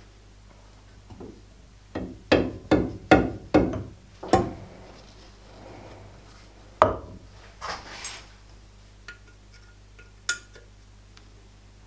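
A run of about five sharp knocks within two seconds, then a single knock and a few lighter metallic clicks: a 100cc kart cylinder on a lathe faceplate being knocked into center, and its clamp nuts worked with a T-handle wrench.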